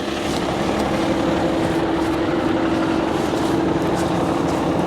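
Ford F-750 dump truck's engine idling steadily, a constant low hum under a rushing noise.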